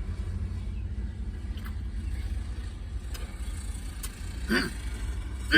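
Steady low rumble of a car heard from inside the cabin, under faint chewing of a burger. Near the end come two short hummed "mm" sounds.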